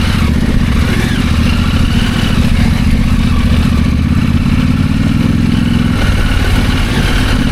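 Husqvarna Norden 901's parallel-twin engine running at a fairly steady pace under way, its note shifting briefly about six seconds in.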